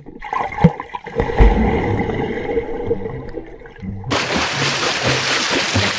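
Water splashing and sloshing as someone goes into a lake. About four seconds in, a louder, hissier rush comes in with background music that has repeated low notes.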